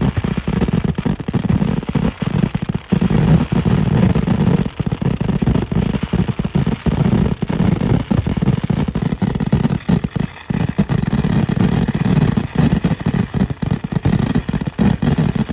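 Fireworks barrage firing from the ground: a dense, continuous run of explosions that blend into one loud, jagged din, with a short lull about ten seconds in.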